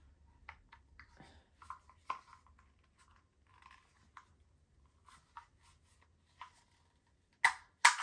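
A plastic vacuum combination tool being handled and turned over, giving light clicks and rustles, then two sharp plastic clicks near the end.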